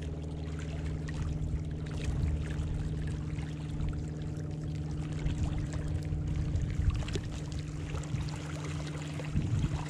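A steady low hum made of a few held tones, over uneven rumbling wind noise on the microphone at the lakeshore.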